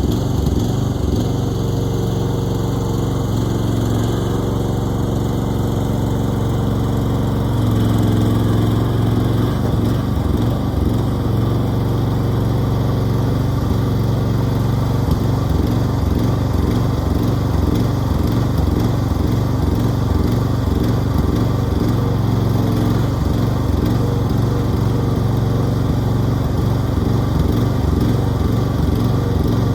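Engine running steadily at a constant level, with its low hum starting to pulse unevenly about eight seconds in, as under changing load.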